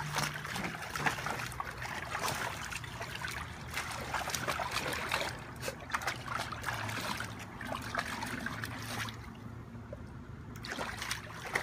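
A dog splashing about in the water of a plastic kiddie pool, pawing and churning it so that it sloshes and splatters without a break, easing off briefly shortly before the end.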